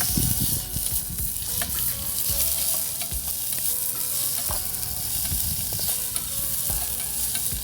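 Onion, peppers, garlic and tomato sizzling as they fry in hot oil in a pan, with scattered short clicks and scrapes as they are stirred and tossed.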